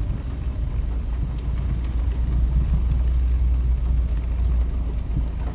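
Car driving along a muddy dirt track: a steady low engine and road rumble, as heard from inside the vehicle.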